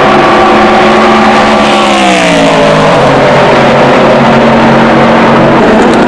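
Racing car engine at high revs passing by at speed, its note gliding down in pitch about two seconds in as it goes past.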